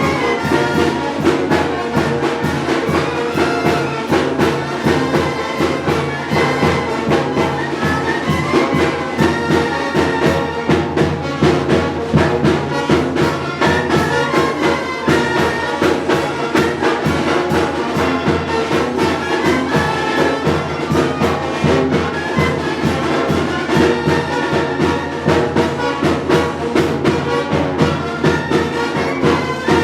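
Mexican banda de viento (village brass band) playing, trumpets and trombones carrying the tune over a steady drum beat.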